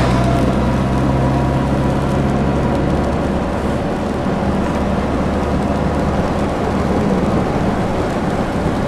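Car cabin noise while driving: a steady engine hum under the hiss of tyres on a wet road. The engine note shifts about three seconds in.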